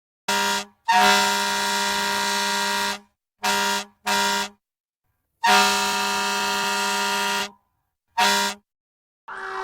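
Vehicle air horn sounding six blasts at one steady pitch: a short blast, a long one of about two seconds, two short ones, another long one, and a final short one.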